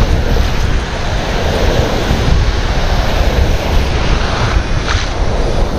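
Surf breaking and foaming around shallow water, with wind rumbling steadily on the microphone.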